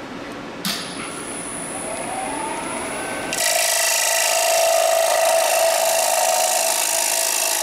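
Wood lathe switched on with a click, its motor whine rising in pitch as it spins up. About three and a half seconds in, a carbide hollowing tool starts cutting into the spinning bowl: a loud, steady scraping hiss over the motor's tones.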